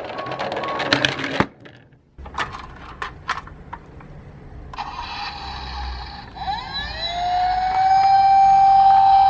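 A few sharp clicks and knocks, then a police siren winding up about six seconds in and holding one long steady tone.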